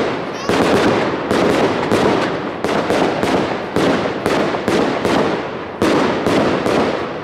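Consumer fireworks going off in a rapid volley, about three bangs a second, each bang trailing off before the next.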